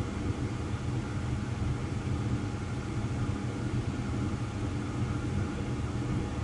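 Steady low machine hum with a few faint steady tones above it, unchanged throughout.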